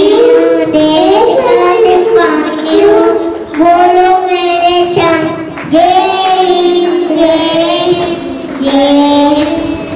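Young boys singing together into microphones in long, held notes, phrase after phrase.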